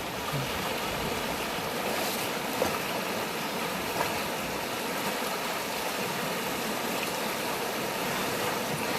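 Strong river current rushing steadily.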